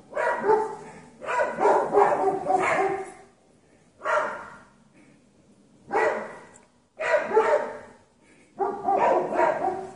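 Dogs barking at a cougar in repeated loud bouts, with short pauses between them.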